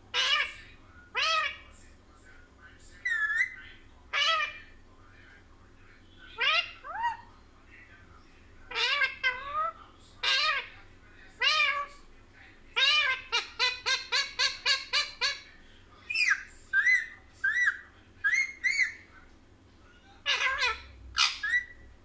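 Indian ringneck parakeet calling: a string of short, pitched squawks a second or two apart, breaking into a quick run of about ten calls, some four a second, midway through.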